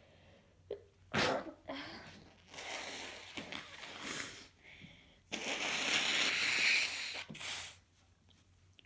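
A person congested with a head cold sneezing sharply about a second in, followed by breathy sniffs, then a long nose blow of about two seconds.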